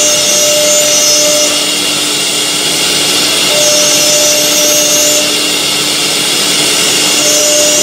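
Multi-spindle CNC wood router cutting grooves into a wood panel: a loud, steady machining noise with a constant hum, and a higher tone that comes and goes three times.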